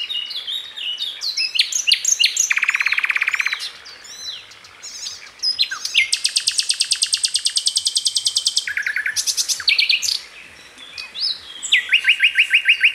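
Songbirds singing: quick chirps and whistled notes broken by rapid trills, a lower one a couple of seconds in and a long, high one lasting over two seconds from about six seconds in, with another trill near the end.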